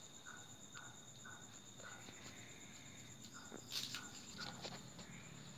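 Crickets trilling steadily in a high, pulsing tone. Over it come faint, irregular clicks and snaps of leaves being stripped off a serut (Siamese rough bush) bonsai's branches, with one sharper snap about two-thirds of the way through.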